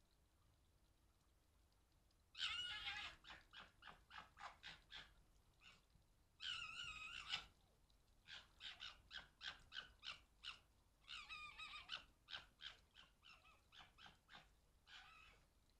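Foxes gekkering: runs of short, rapid staccato chatters, about four a second, the call foxes make when squabbling or play-fighting. The chatter is broken twice by a longer, higher wailing call, about two and a half and six and a half seconds in.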